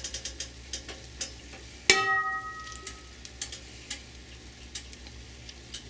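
Metal stock pot handled on the stove burner, with a single ringing clang about two seconds in as the pot knocks against the burner, among scattered light clicks as it is tilted to spread oil over its bottom.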